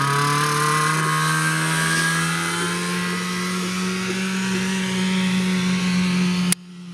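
1986 Yamaha Enticer 340 snowmobile's two-stroke engine running under throttle as the sled pulls away, its pitch holding steady and slowly rising. Near the end the sound drops suddenly to a fainter engine hum.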